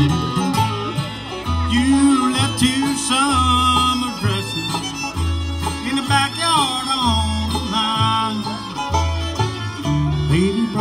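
Live bluegrass band playing an instrumental break: a fiddle leads with sliding notes over strummed acoustic guitar and evenly spaced bass notes.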